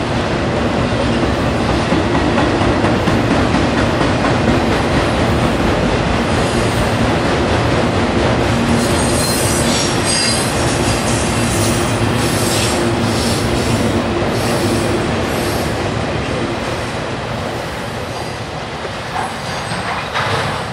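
Freight train cars rolling past close by, a steady clattering rumble of steel wheels on rail with thin high wheel squeals about halfway through. The sound fades in the last few seconds as the train moves away.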